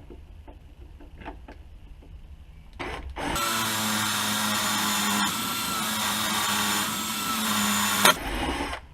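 Electric drill running steadily as a sharpened bit bores into a Holley carburetor throttle plate, starting a little after three seconds in and lasting about five seconds; it stops suddenly with a sharp click as the bit hits something hard.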